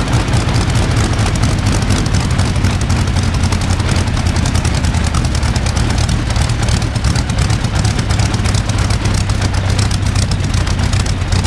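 Rolls-Royce Griffon 58 V12 aero engine running steadily, turning its contra-rotating propellers, with a loud, even, low exhaust note.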